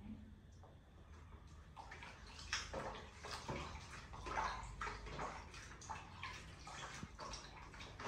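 Bath water splashing and sloshing in a tub in irregular bursts, starting about two seconds in.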